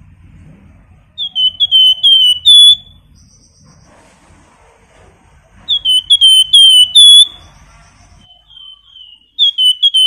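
A caged flamboyan songbird singing in three loud bursts a few seconds apart. Each burst is a quick run of about five sharp whistled notes sliding downward, and the last note of each run is the loudest.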